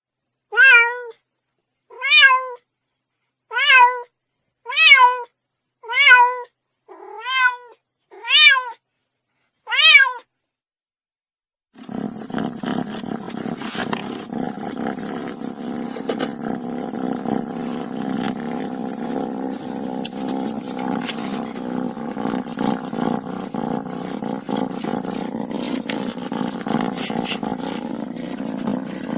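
A kitten meowing eight times, short calls about every second and a half, each rising then falling in pitch. After a short pause a continuous low, rough rumbling sound begins and carries on without a break.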